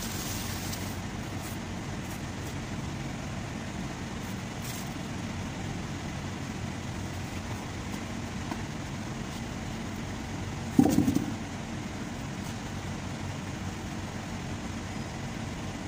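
Steady low mechanical hum of a vehicle workshop, with a single loud knock about eleven seconds in and a few faint ticks near the start.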